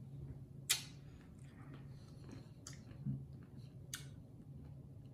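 Quiet room with a steady low hum and a few faint, short clicks spread across a few seconds: small lip and mouth sounds of a man savouring a mouthful he has just drunk.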